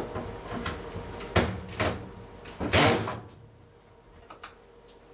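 Knocks, clatter and scraping of hand tools and metal parts being handled, with several separate knocks and the loudest, longest clatter about three seconds in.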